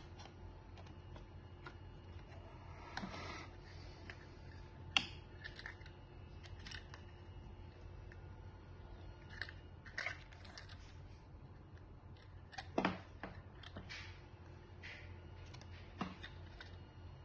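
Scattered small clicks and taps over a steady low hum. There is a sharp click about five seconds in and a louder double knock past the middle, typical of small objects being handled.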